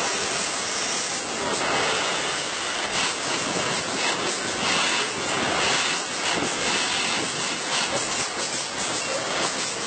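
Factory-floor machinery noise: a steady hiss with an irregular light clatter running throughout.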